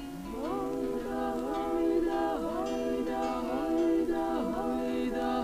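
Several women singing a Ukrainian folk song together in harmony, unaccompanied. The voices swoop up together into the first long note and then hold drawn-out notes with dips in pitch.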